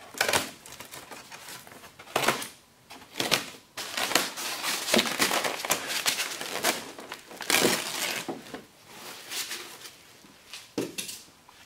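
Clear plastic packaging wrap crinkling and rustling in irregular bursts as it is pulled off parts packed in a styrofoam box.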